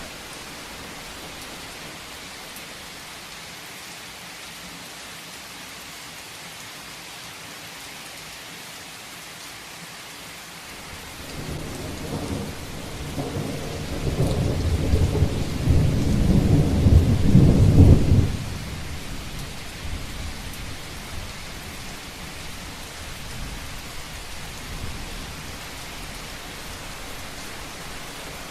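Heavy rain falling steadily, with a roll of thunder that starts about a third of the way in. The thunder builds to a loud low rumble, breaks off sharply after a few seconds and fades into the rain.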